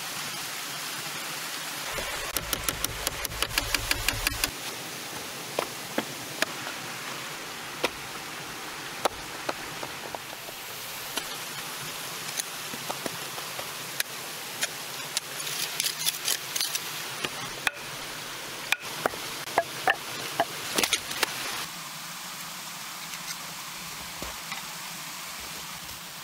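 Scattered clicks and knocks from hands working tarp, soil and moss, over a steady hiss. A quick run of clicks with a low rumble comes about two seconds in, and the handling gets busier in two stretches later on.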